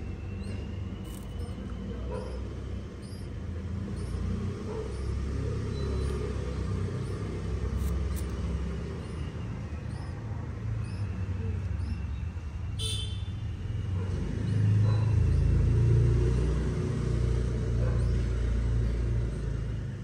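Low engine rumble of a passing vehicle, swelling about three-quarters of the way through, with faint high bird chirps repeating less than a second apart over it.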